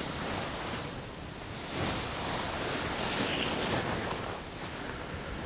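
Wind gusting over the microphone, swelling louder about two seconds in and easing off near the end.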